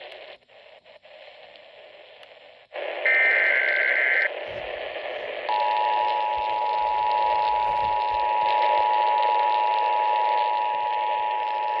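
Weather radio receiver hiss, then about three seconds in a brief warbling burst of digital alert data. From about five seconds in comes a steady two-tone Emergency Alert System attention signal, the alarm that announces a severe thunderstorm warning.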